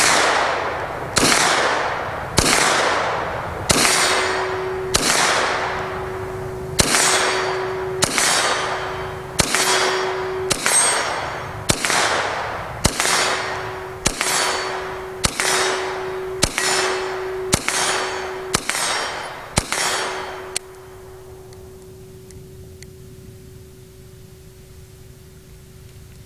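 Semi-automatic carbine fired in slow, steady single shots, one a little over a second apart, each shot ringing out with a long echoing tail. The string of fire stops about twenty seconds in.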